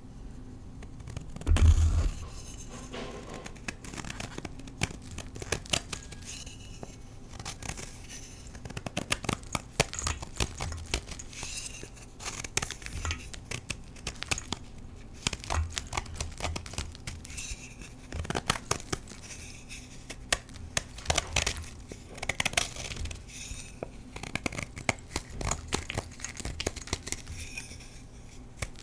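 Knife blade shaving a block of Colift gym chalk, the edge scraping off thin flakes with a dense run of small dry crackles. A low thump about two seconds in.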